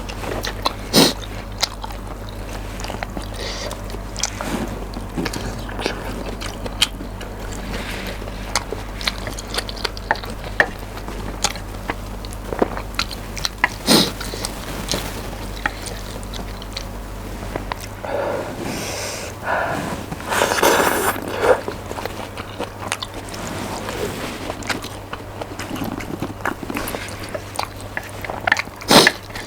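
Close-miked eating of spicy mixed noodles: chewing with frequent wet mouth clicks and smacks, and a run of louder eating noise about two-thirds of the way through. A low steady hum sits under it for the first half.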